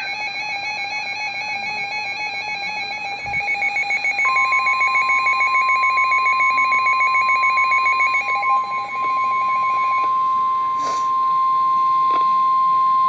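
Emergency alert attention tone: a single steady high-pitched tone, the NOAA Weather Radio warning alarm near 1050 Hz. It comes in about four seconds in and holds, over a warbling electronic tune that pulses and fades away near the end.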